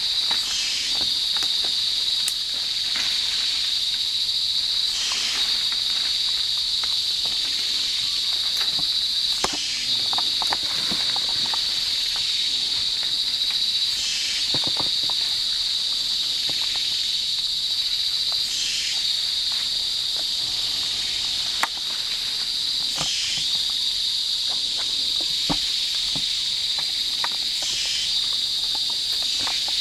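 Rainforest insect chorus: a steady, high-pitched buzzing drone that swells about every four and a half seconds. Occasional sharp snaps and crackles of twigs and leaf litter come through it.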